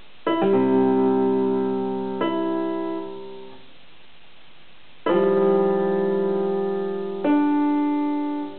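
Yamaha electronic keyboard in a piano voice: four chords struck a couple of seconds apart, each held and slowly fading, with a short pause after the second and the last released near the end.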